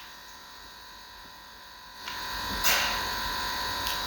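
A steady high electronic whine throughout. About two seconds in, a louder noisy stretch begins, with a sharp crack a little later, of the kind put down to an old building settling.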